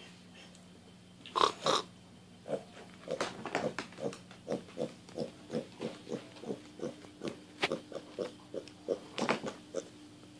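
Young pot-bellied pig grunting in short, regular grunts, about three a second, as it walks up to be petted, after two louder calls about a second and a half in.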